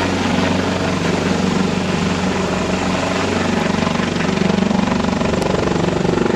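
Search and rescue helicopter running close by: a loud, steady turbine and rotor sound with a rapid rotor beat, rising a little in pitch in the second half.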